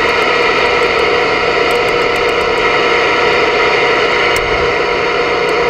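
Steady hiss of static from a Voyager VR9000 CB radio's receiver as it is tuned across the 11-meter band, with no station coming through.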